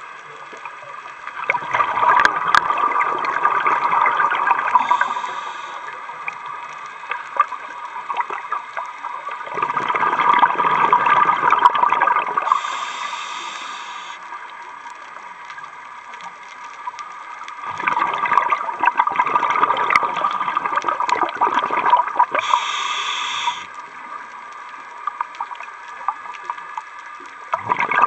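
Scuba diver breathing through a regulator underwater: rhythmic bursts of exhaled bubbles gurgling, each a few seconds long and coming about every eight seconds, with quieter stretches between. A new burst begins near the end.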